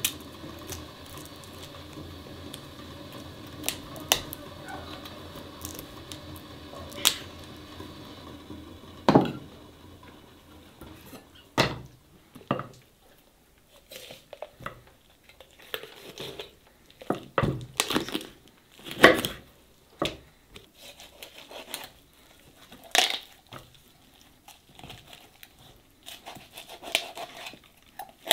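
A knife jointing a raw whole chicken on a wooden chopping board: sharp knocks of the blade against the board, with soft tearing of skin and joints, from about nine seconds in.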